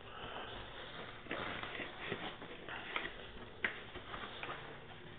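Packaging and box contents being handled: soft rustling with a few light clicks and knocks.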